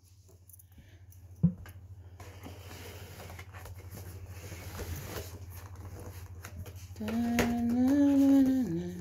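A person humming a few held notes, stepping up and then down in pitch, starting about seven seconds in. A single light knock comes about a second and a half in, over a steady low hum.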